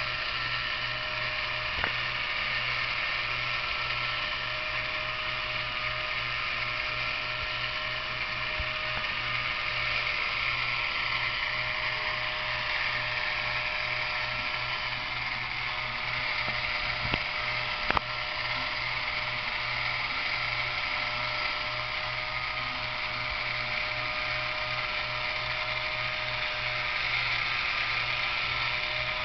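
Small DC gearbox driving HO-scale model carnival rides: steady whirring and gear chatter with an even, fast pulsing. A few sharp clicks come through, one about two seconds in and two more near the middle.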